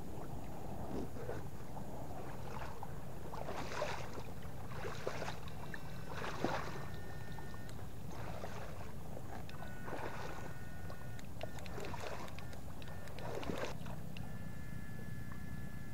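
Water sloshing and splashing in repeated strokes, roughly one every second or two, over a steady low rumble. A faint thin whine comes and goes several times.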